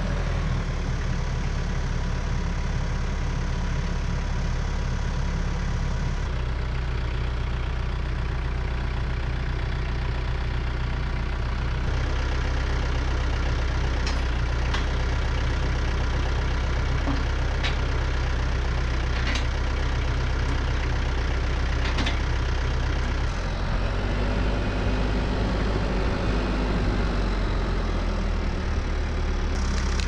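TYM 574 tractor's diesel engine running steadily, with a few sharp clicks in the middle.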